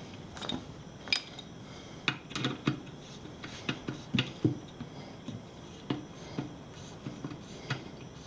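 Small metal parts clicking and clinking: a nut and washers being fitted and tightened onto the valve stem of a new TPMS tire-pressure sensor in an alloy wheel rim. The clicks come irregularly, several sharper ones standing out.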